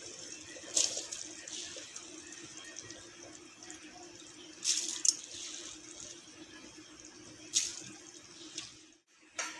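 Spiced stock boiling in an aluminium pot on a gas stove, bubbling with a steady hiss, with a few brief louder splashes as rice is tipped into it.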